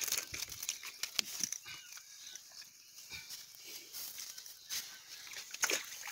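A cast net full of armored catfish (cari) being handled on wet sand: irregular clicks, scrapes and rustles as the wet mesh is pulled apart and the fishes' bony plates and spines knock against each other.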